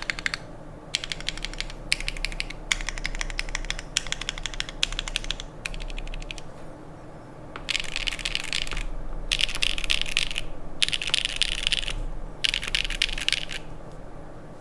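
Typing on a custom mechanical keyboard: a plateless, gasket-mounted Leviatán R1 with lubed Gateron Pure Berry switches and GMK Carbon keycaps. Steady individual keystrokes come first, then from about halfway in four louder bursts of very fast typing, each about a second long.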